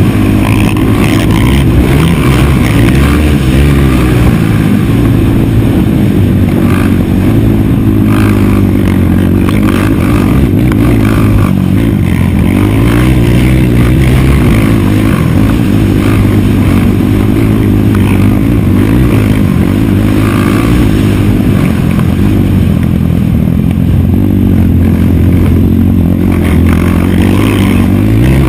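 Race quad (ATV) engine heard on board while it is ridden hard on a dirt motocross track, its revs climbing and dropping again and again through gear changes and corners.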